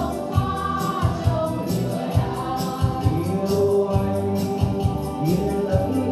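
Music with several voices singing over a steady drum beat.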